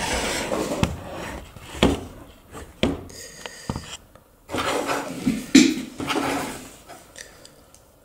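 Handling noise on a hard workbench: a camera being set down, then a series of sharp knocks and clatters with some rubbing as tools and multimeter probes are picked up and moved.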